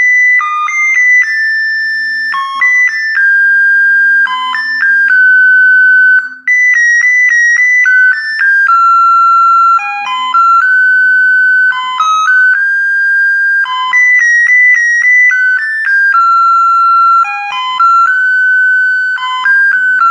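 BC547 melody doorbell circuit playing its tune through a small speaker: a single line of electronic beeping notes, quick runs of short notes alternating with longer held ones.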